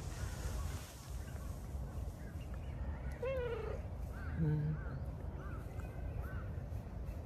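A single falling animal call about three seconds in, followed by a brief low hum and a few short high chirps, over a steady low rumble.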